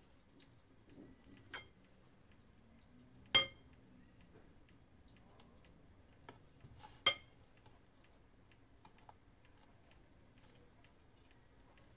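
Metal forks clinking against a glass mixing bowl: a light clink, then two sharp ringing clinks about three and a half and seven seconds in, the first of these the loudest.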